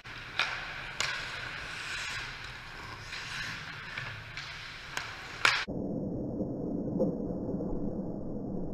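Ice hockey play: skates scraping on the ice and sharp cracks of sticks and puck, the loudest about five and a half seconds in. Just after it the sound goes suddenly muffled, a dull low rumble with the sharp rink noise gone.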